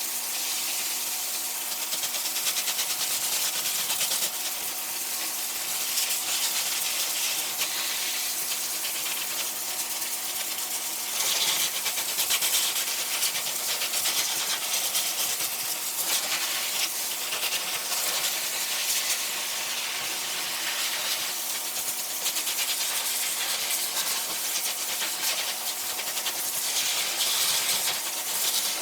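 Pet hair dryer blowing air with a steady hiss and a faint motor hum, swelling a little now and then as the airflow moves over the coat.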